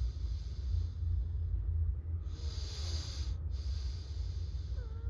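Pneumatic air hissing out in a wheeze, in separate bursts of about a second each, three in all, over a steady low rumble.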